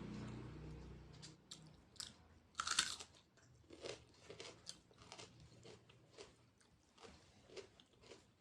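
A person eating: one loud crunchy bite about two and a half seconds in, then close-up chewing with short clicks roughly twice a second. A low hum fades out in the first second.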